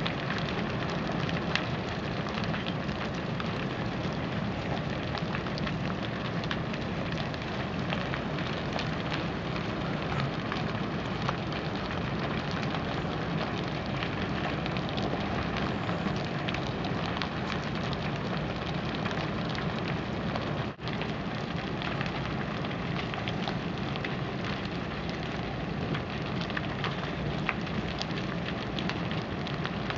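Large wooden lattice structure burning fully engulfed: a steady rush of flame with dense, continuous crackling and popping of burning timber.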